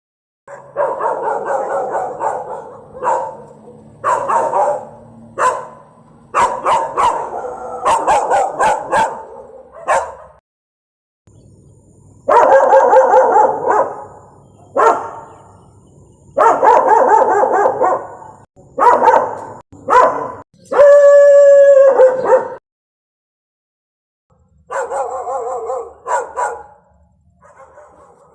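Several different dogs barking, one after another, in short runs of rapid barks separated by pauses. About three-quarters of the way through, one long, steady, held cry rings out as loud as the loudest barking.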